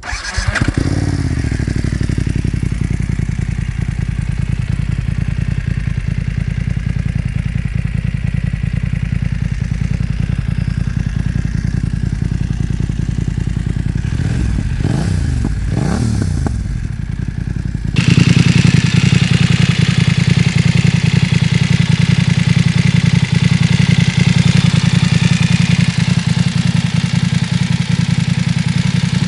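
BMW F900 XR parallel-twin engine running through an Akrapovic slip-on exhaust: it starts up with a brief flare, then settles to a steady idle. About fifteen seconds in there are two quick throttle blips, and from about eighteen seconds it is louder.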